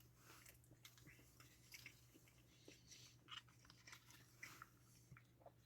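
Faint chewing of a mouthful of macaroni and cheese with chicken nuggets: soft, irregular wet mouth clicks and smacks, over a low steady hum.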